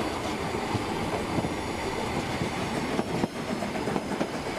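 Narrow-gauge steam locomotive of the Brockenbahn working uphill with its train, a steady run of steam and rail noise.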